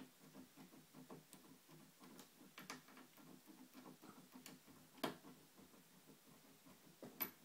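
Faint, irregular metal clicks and ticks of a tubular lock pick worked in a 7-pin tubular cam lock, pushed in, twisted and drawn out, with a few sharper clicks among them.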